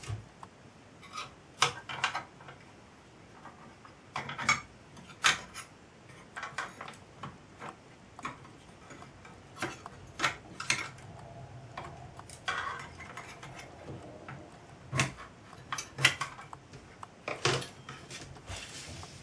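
Irregular metallic clicks and taps as a small screwdriver and screws work against the painted steel plates of a model traction engine while its floor plate is screwed on.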